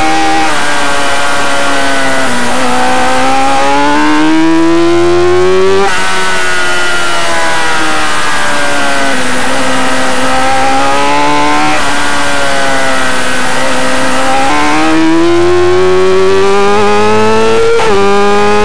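Motorcycle engine at racing speed, heard from on board: the revs drop and climb again several times as it brakes into corners and accelerates out, with sudden breaks in pitch at gear changes about six seconds in and near the end.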